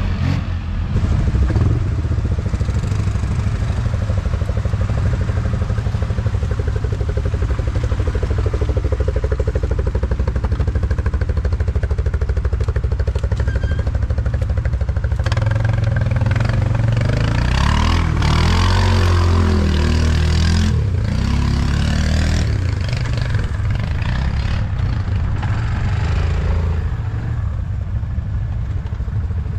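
ATV engine running under way, loud and continuous, revving up and down over several seconds about halfway through.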